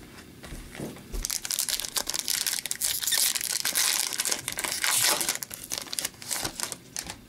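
Foil wrapper of an Upper Deck hockey card pack crinkling and tearing as it is handled and ripped open, from about a second in until near the end.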